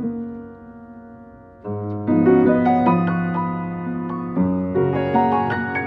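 Background piano music: a soft chord dies away, then fuller chords and a gentle melody come in about two seconds in.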